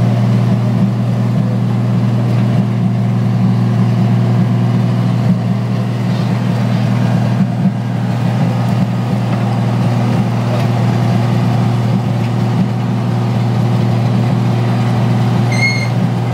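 Steady drone of heavy machinery at work: a forklift's engine and the gas engine that powers a car crusher's hydraulics, both running at a constant pitch. A brief high squeal comes near the end.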